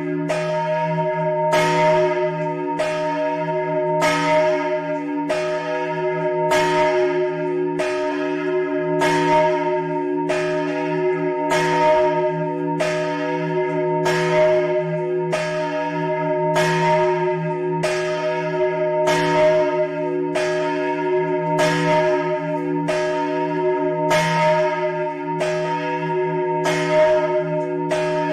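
The big bell (campanone), an E-flat bell recast by Capanni in 1952, is swung by hand rope in a fast swing (a slancio veloce) and rung solo 'a distesa', the local funeral ringing. Its clapper strikes about once a second in an even peal, each stroke ringing on over a continuous low hum.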